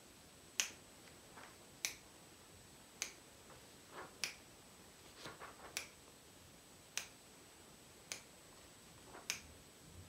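Finger snaps at a steady, even beat, about one every 1.2 seconds, eight in all, each snap marking one clock tick timed by hand. A few fainter rustles fall between some snaps.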